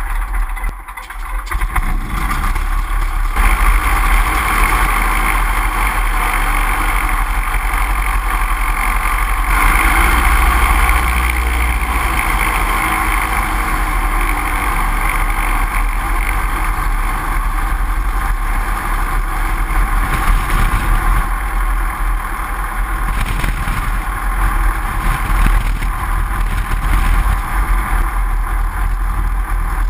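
Great Lakes biplane's engine running as the aircraft taxis, picking up about two seconds in and then holding steady, with the propeller wash rumbling on the wing-mounted camera's microphone.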